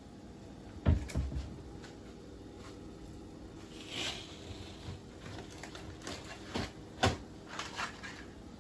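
Scattered knocks and light clattering, with two louder thumps about a second in and about seven seconds in, and a brief rustle around the middle.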